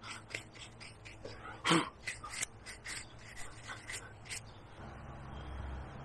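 Hand carving tools working into the tree's wood: a scatter of short clicks and scrapes, one louder knock just under two seconds in. A low steady hum comes in near the end.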